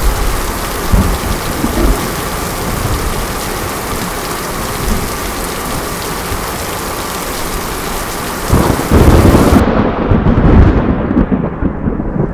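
Steady heavy rain hissing, then a loud low rumble of thunder about two-thirds of the way in that rolls on to the end while the rain's hiss falls away.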